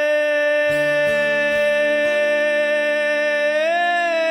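Live band music under one long held note, most likely the singer's sustained vowel, bending up slightly near the end. Deeper bass notes come in about a second in.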